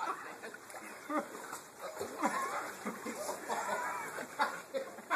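A dog whimpering and yipping in short, scattered cries.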